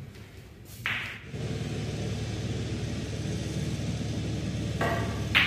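Two sharp clicks of snooker balls struck on the table, one about a second in and one near the end, with a low steady rumble between them.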